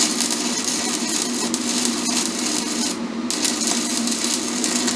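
Stick-welding arc from a 7018 coated electrode, crackling steadily over a low hum. About three seconds in it cuts out for a moment, as the arc goes out briefly, then restarts.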